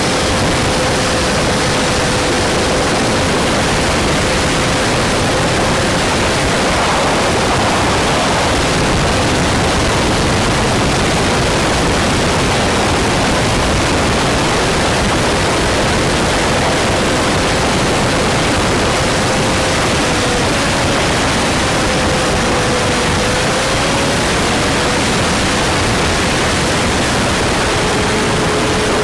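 Wind rushing over the microphone of a camera mounted on a Honda CG125 motorcycle at riding speed: a loud, steady hiss. A faint steady tone, likely from the bike's single-cylinder engine, runs beneath it and wavers slightly about three-quarters of the way through.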